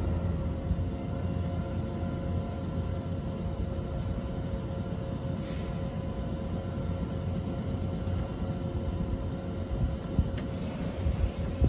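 Two stationary Nankai 7100-series electric trains standing at the platform, their onboard equipment giving off a steady electrical hum over a low rumble.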